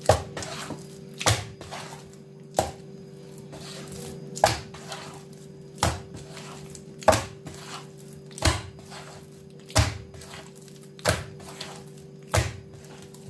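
Soft, wet sfenj yeast dough slapped down by hand into a woven wooden bowl, about ten sharp smacks at an even rhythm of roughly one every second and a quarter, as the dough is beaten to knead it and work air through it.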